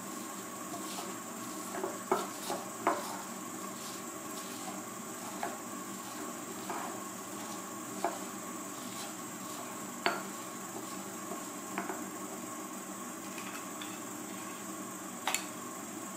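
Stone pestle grinding and pounding herbs, garlic and salt in a stone mortar: a soft grinding with irregular sharp knocks of stone on stone, strongest a couple of seconds in and once more near the end, over a steady background hiss.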